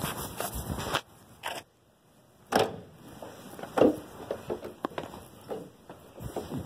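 Muffled rustling and handling noise from a phone that is covered, with a few sharp knocks and small scrapes. The sound drops to near silence for about half a second around two seconds in.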